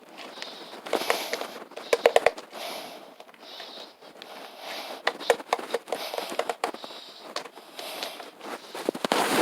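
Slime being squished and pressed by hand: soft wet squelching with crackling pops, a quick run of sharp pops about two seconds in and a few more around the middle.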